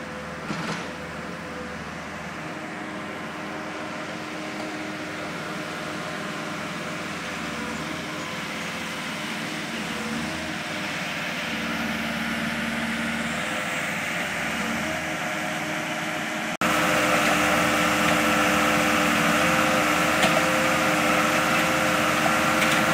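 Backhoe loader's diesel engine idling steadily with a hum of several held tones, slowly growing louder. About two-thirds of the way in it jumps suddenly to a louder, closer sound.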